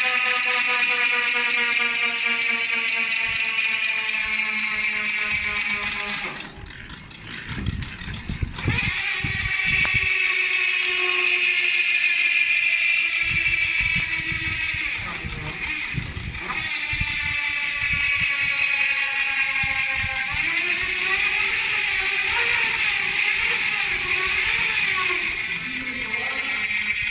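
ZTTO ratchet-type bicycle hub with 54 engagement points freewheeling as the wheel spins down: a fast, fine buzzing click that slowly drops in pitch as the wheel slows. It breaks off briefly about six seconds in, then starts again higher when the wheel is spun anew.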